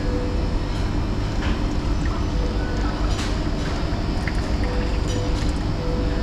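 Water pouring from a beverage dispenser's tap into a small glass, over a steady low rumble of room noise, with a few light clicks and clinks.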